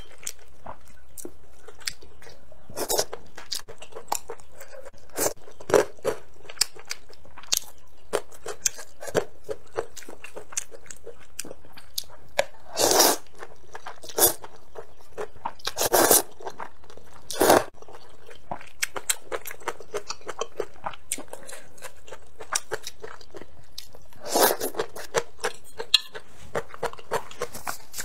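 Close-up eating sounds: slurping wide starch noodles out of hot and sour broth and chewing them, with many short wet clicks and a few longer, louder slurps.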